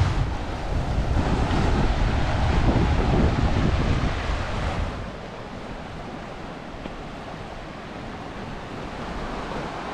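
Lake Ontario waves washing against the shore, with wind gusting on the microphone; the wind rumble eases about halfway through, leaving a quieter, steady wash of water.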